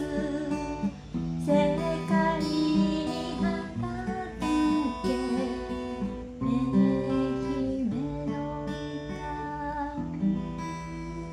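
Acoustic guitar strummed and picked as song accompaniment, with a voice singing softly over it at times.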